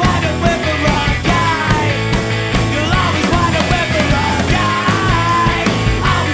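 Indie rock trio playing live: electric guitar, bass guitar and drum kit, with a man singing lead vocals.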